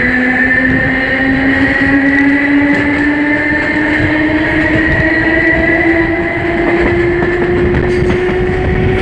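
CPTM electric train unit 1115's traction motors growling as the train accelerates, a droning tone climbing steadily in pitch over continuous wheel and running noise.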